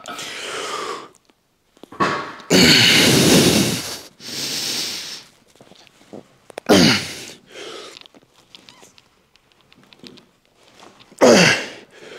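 A man's loud, forceful breathy exhales and groans, about five in a row with pauses between. The longest comes a few seconds in, and two sharper ones later drop in pitch. It is heavy breathing while recovering just after a hard set of weight training.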